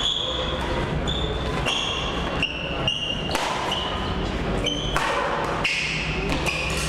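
Badminton rally: rackets striking the shuttlecock with sharp pops, and sneakers squeaking briefly on a tiled court several times, echoing in a large hall.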